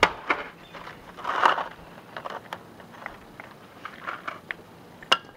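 Scattered sharp clicks and light knocks, with a louder rustle about a second and a half in: small things being handled.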